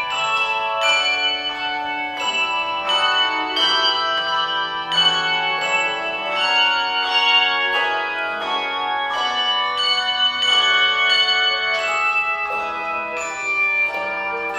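Tuned bells playing a slow melody, each struck note ringing on over the next.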